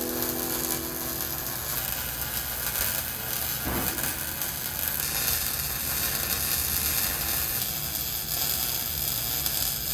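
Welding arc crackling and sizzling steadily, with a brief change about four seconds in.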